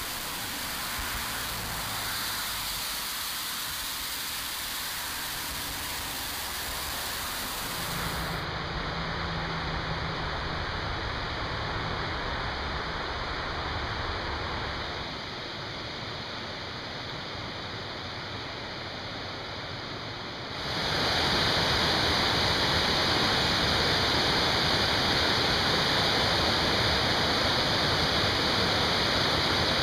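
Steady rush of high-running water, swollen after days of heavy rain. First a river's flow surges across rapids, then about two-thirds of the way in a louder, brighter rush takes over as a waterfall and an overflowing dam spillway pour down.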